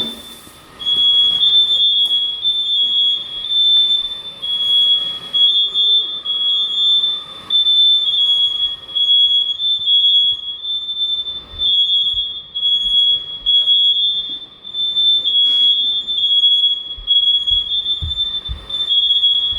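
Hard-wired household smoke alarms sounding, a loud high beeping tone from more than one unit overlapping at slightly different pitches. They have been tripped by smoke near the kitchen.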